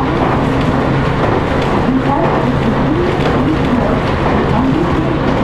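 Interior running sound of an ET127 series electric train with a Toyo GTO-VVVF traction inverter: a steady low hum with whining tones that slide up in pitch several times, over the even running noise of wheels on rail.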